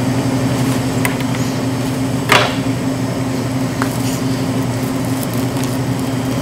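Steady low room hum, with a few light knocks and one short scrape about two seconds in.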